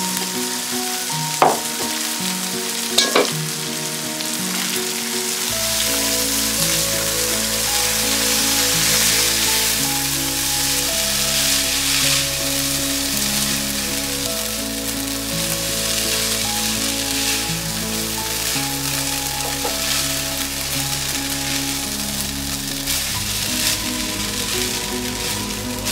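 Raw rice with chopped onions, chestnuts and pumpkin seeds sizzling as it fries in oil in a pan, turned over with a silicone spatula. Two sharp knocks sound near the start, about 1.5 and 3 seconds in. Soft background music plays underneath.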